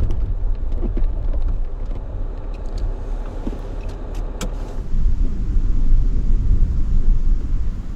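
Jeep driving on a snowy dirt road: a steady low engine and road rumble, with a few sharp clicks or knocks in the first half. About five seconds in, the rumble grows louder.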